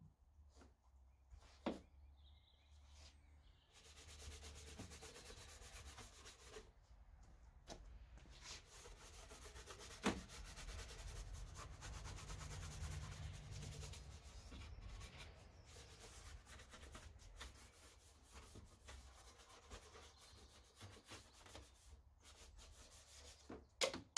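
Faint scrubbing of a detailing brush working all-purpose cleaner into engine bay surfaces, a rapid scratchy rub of many quick strokes starting a few seconds in. A few sharp knocks stand out, the clearest about ten seconds in.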